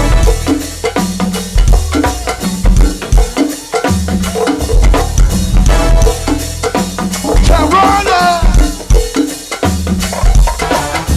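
Go-go band playing an instrumental groove: a drum kit and hand percussion over a repeating bass line. A brief wavering high-pitched sound comes through about eight seconds in.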